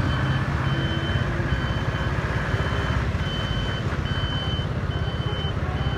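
Tow truck's engine running as it drives past, with an electronic warning beeper sounding over and over, a little more than one high beep a second.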